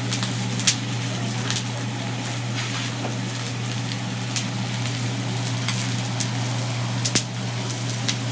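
Food sizzling on a hot griddle over a steady low hum, with a few sharp metallic clicks, one about a second in and two close together near the end.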